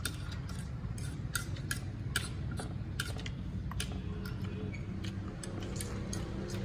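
A fork clicking and scraping against a plate while noodles are picked up and eaten: short sharp clicks at uneven intervals, about one or two a second, over a steady low hum.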